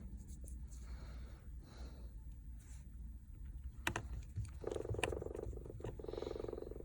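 Small tools and screws clicking against a phone's frame as it is screwed back together, with two sharp clicks and two short buzzing passes in the second half over a low steady hum.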